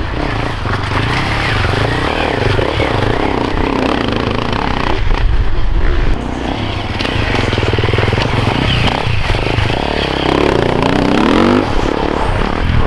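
Enduro motorcycle engines revving hard, the pitch rising and falling as the riders accelerate and ease off. The sound drops abruptly about halfway through, then another bike revs up with a rising pitch near the end.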